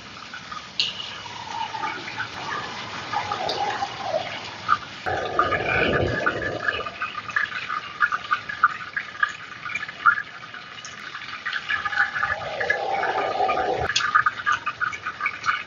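Thinly sliced pork belly sizzling on a hot grill pan, a steady dense crackle. Two louder rushing noises come through, one about five seconds in and one that cuts off abruptly near the end.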